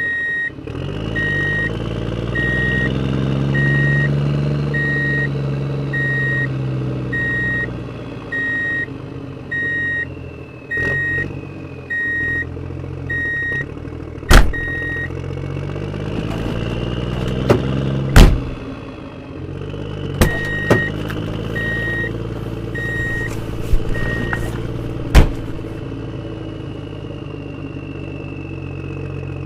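Radio-controlled construction vehicles: a reversing beeper sounding about once every second and a half over an engine sound that rises and falls in pitch. Four or five sharp, loud knocks come in the second half, and the beeping stops partway, then returns briefly.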